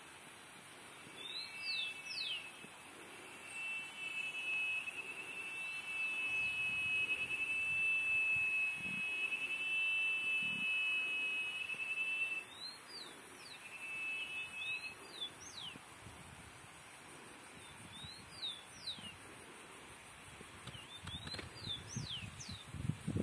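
Wild birds calling: clusters of short, sharply rising and falling whistled notes come again and again, and a steady shrill trilling note is held for about nine seconds in the first half. Under it runs a constant high insect hiss.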